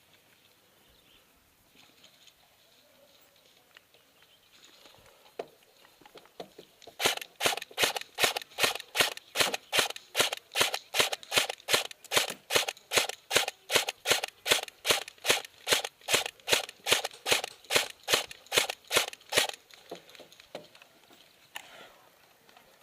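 Airsoft gun firing a long string of single shots, sharp cracks at an even pace of about three a second, starting about seven seconds in and stopping a few seconds before the end.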